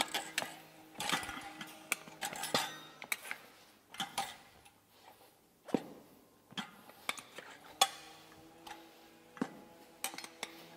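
Tire irons clinking and clanking against a dirt bike's spoked wheel rim as the tire is worked up over the rim: a string of irregular sharp metallic knocks with short ringing.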